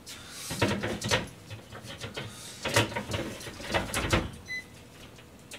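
Several clattering knocks from a countertop electric grill's tray and door being handled and shut. About four and a half seconds in comes one short electronic button beep, as its timer is set.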